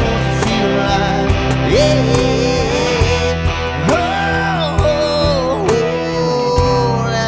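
Rock band playing an instrumental break: a lead guitar line of sliding, bending notes over drums and bass guitar.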